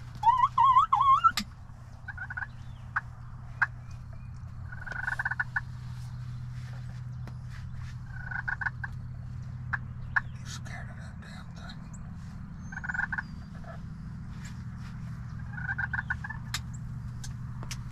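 Wild turkey gobblers gobbling in the distance, about five short rattling gobbles a few seconds apart. A loud wavering, rising bird call comes in the first second and a half, and a steady low hum runs underneath.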